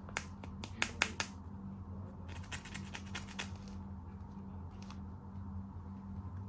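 Hands handling plastic toys and their packaging: a quick run of sharp clicks and snaps in the first second or so, then softer tapping and rustling, over a steady low hum.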